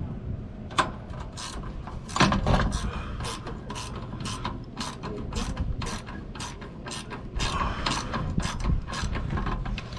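Ratchet wrench clicking in a steady rhythm, about two to three clicks a second, as bolts are run in on a new RV rear stabilizer jack. A louder knock about two seconds in.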